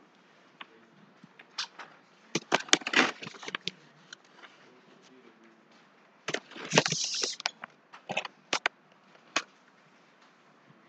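Handling noise close to the microphone: scattered clicks and knocks in two clusters, about two and a half seconds in and again from about six seconds in, with a short rustle about seven seconds in.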